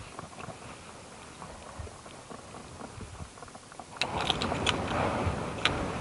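Faint scattered ticks, then from about four seconds in a louder rustling and crackling with sharp clicks, like something moving through dry litter.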